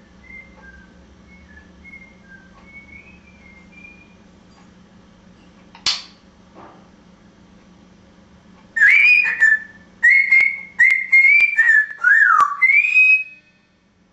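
African grey parrot whistling: a few soft short notes at first, then a loud whistled phrase of short notes, some sliding up and one falling, near the end. A single sharp click about six seconds in.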